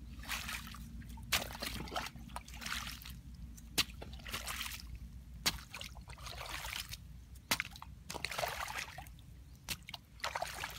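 A hoe chopping into wet mud in a shallow water-filled ditch, a sharp chop every second or two, each followed by splashing and sloshing of muddy water. Water trickles between the strokes.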